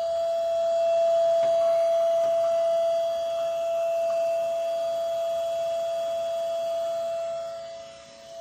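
A battery-powered electric impeller pump running with a steady, noisy whine as it pumps ballast water out of a canoe's water bladder. The level dips briefly near the end.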